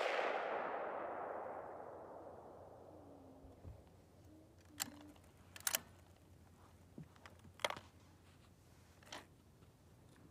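The echo of a Ruger M77 bolt-action rifle's shot rolling away and fading over about three seconds, followed by a handful of sharp metallic clicks as the bolt is worked to cycle the action.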